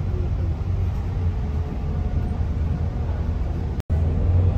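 Steady low rumble of a bus's engine and running noise heard inside its cabin, with no speech; it drops out for an instant near the end.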